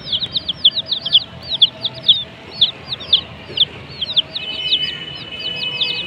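Several young chicks peeping without pause, a quick stream of short, high, falling peeps that overlap one another.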